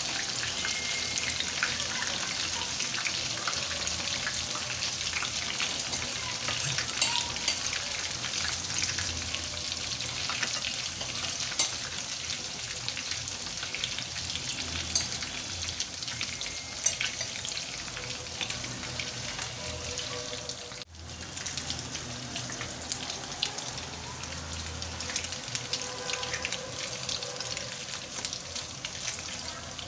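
Batter-coated Bombay duck fillets frying in hot oil in a pan: a steady sizzle with scattered pops and crackles. The sound drops out for a moment about two-thirds of the way through.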